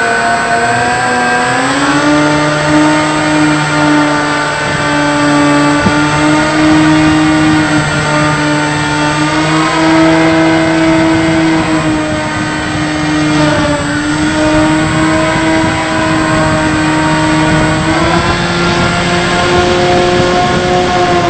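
Electric motor and propeller of a HobbyKing Bix3 RC plane, heard from a camera on the plane in flight: a steady whine that rises in pitch about two seconds in, then shifts up and down a little with the throttle.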